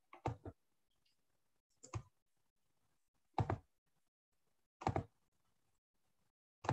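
A run of short, dull knocks, five in all and roughly a second and a half apart, the first a quick double.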